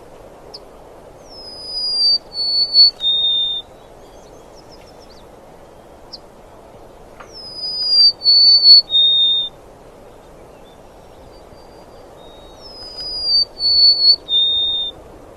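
A songbird singing the same clear whistled phrase three times, about every five and a half seconds: a falling whistle followed by two held notes, each lower than the last.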